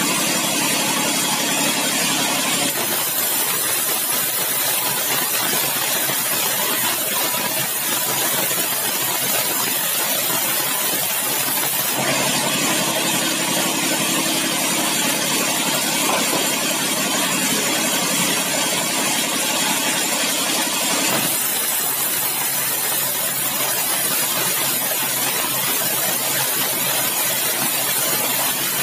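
Large sawmill band saw running continuously while resawing bengkirai hardwood boards, its tone shifting a few times as boards go into and out of the cut.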